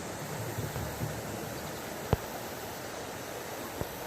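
Steady rush of floodwater running high after thunderstorms, with one sharp click about halfway through and a fainter one near the end.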